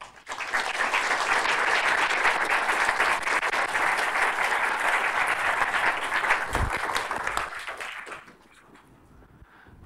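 Audience applauding, building within the first half second and dying away about eight seconds in.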